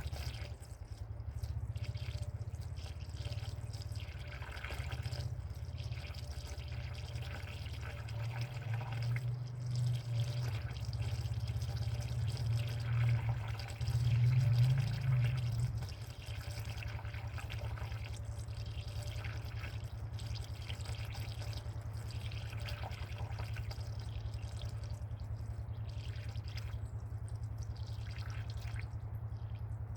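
Liquid glugging and trickling as a gallon jug is poured into a car's cooling system, over a steady low hum. The pouring is loudest about halfway through and thins out after that.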